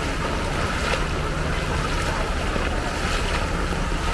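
Steady rush of strong, fast-flowing floodwater, with a low rumble of wind buffeting the microphone.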